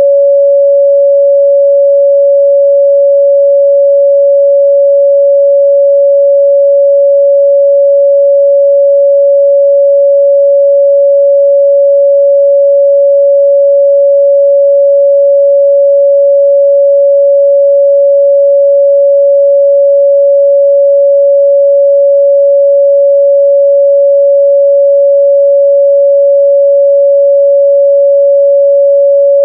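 Steady, loud 562 Hz pure sine test tone, one unbroken pitch with no change.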